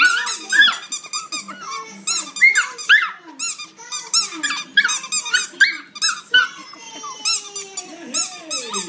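Squeaky rubber toy shaped like a sneaker squeezed over and over in quick runs of high squeaks, while a small dog growls at it.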